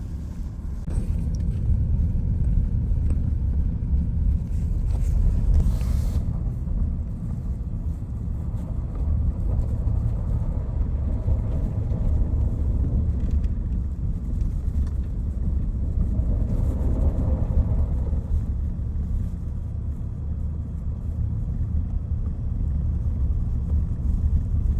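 Car driving, a steady low rumble of engine and tyres on a slushy road.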